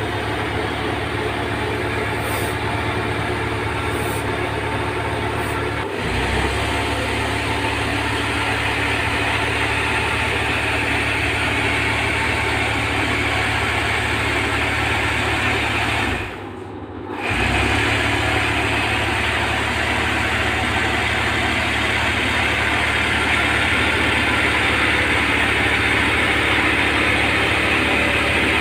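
Steady hum of a running motor, with a constant low drone and hiss. It drops out briefly for about a second past the middle, then carries on.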